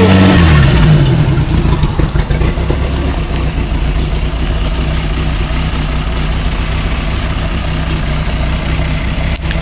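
Inboard engine of an OMC Cobra sterndrive boat, run on a water hose on land. In the first second it drops from raised revs back to idle, then idles steadily, the replaced Cobra lower unit seeming to work as designed.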